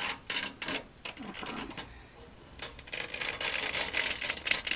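Snake inspection camera's cable and probe clicking and rattling against the thin sheet metal of a furnace heat exchanger as it is worked inside. The clicks come fast and irregular, ease off briefly about two seconds in, then come denser again.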